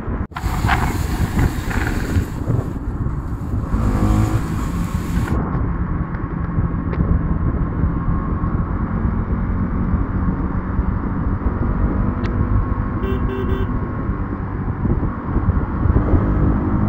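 Motorcycle running at road speed in traffic, its engine note buried in steady wind rumble on the microphone. The sound drops out for a moment just after the start.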